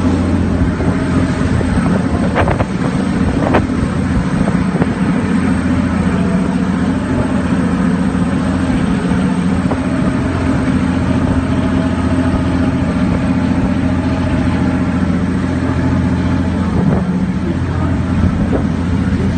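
Passenger boat's engines running with a steady low drone, with wind buffeting the microphone.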